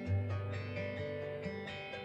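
Acoustic guitar strummed chords, with a low bass note ringing under them from the start.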